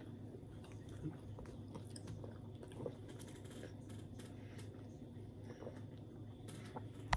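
A person chewing and biting into pizza and fries close to the microphone: soft chewing with scattered small crunches and clicks over a faint steady low hum.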